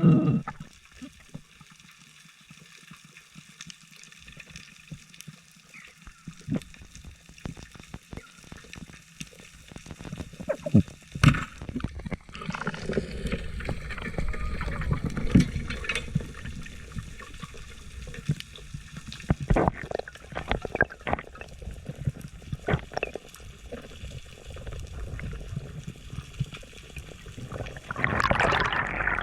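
Water sloshing and gurgling around a camera during a spearfishing dive, with scattered sharp clicks and knocks. A louder rush of water and gurgling comes near the end.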